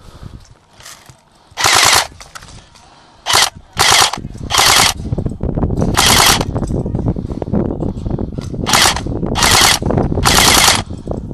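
Airsoft rifle firing short full-auto bursts: about eight rapid rattling strings, some of them in quick succession, with a low rumble of movement underneath in the second half.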